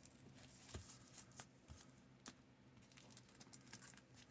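Near silence, with a few faint, scattered taps and rustles of cardboard and paper packaging being handled.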